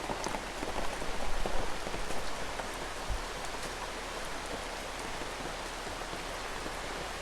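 Rain falling steadily, with louder patters and drips in the first couple of seconds before it settles into an even hiss.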